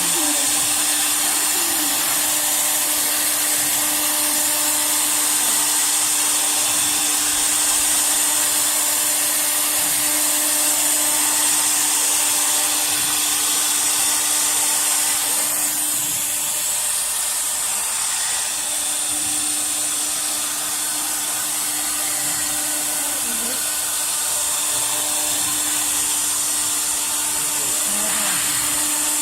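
Air-cooled spindle of a wood CNC router running steadily while carving MDF: a constant high-pitched hiss over a steady hum. The tone shifts slightly a little past halfway through.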